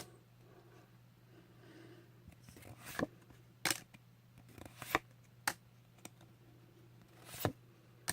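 Pokémon trading cards being handled and flipped through, giving about six short crisp card snaps spaced roughly a second apart.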